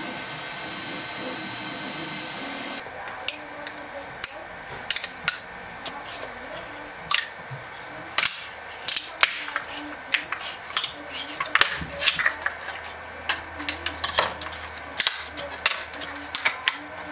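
Longer LK5 Pro 3D printer's stepper motors running with shifting tones. About three seconds in, a run of sharp, irregular clicks and snaps takes over as hands handle the plastic print on the bed.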